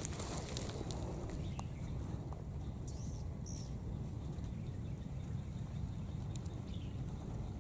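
Outdoor ambience in a palm plantation: a steady low rumble under a high, steady insect trill, with a few short, high chirps from a small animal or bird, one about three seconds in and another near the end.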